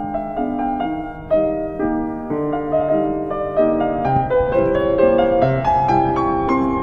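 Keyboard music, piano-like: a melody played over steadily repeated chords.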